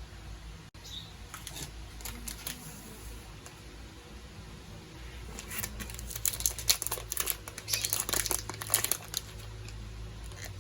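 Quick runs of crinkling and clicking taps, sparse at first and coming thick and fast in the second half, over the steady whir of a desk fan.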